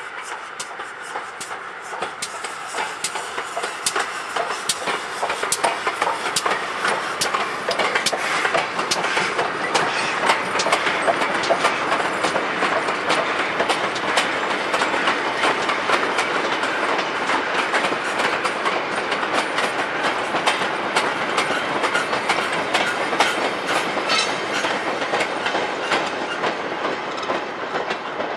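Steam-hauled goods train of short wagons rolling past, wheels clicking rhythmically over the rail joints. It grows louder over the first several seconds and eases slightly near the end as the last wagons go by.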